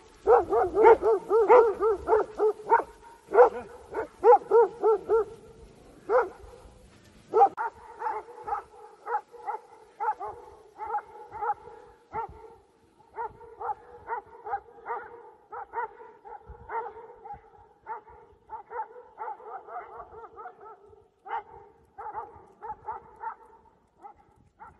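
Dogs barking at a bear in a long string of short, fast barks. About seven seconds in the sound changes abruptly, and the barking goes on at a steadier pace and a little quieter.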